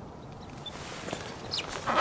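Handling noise from a small waterproof camera on a pole mount being picked up and moved about: rustling with a few clicks and knocks, growing louder in the second half.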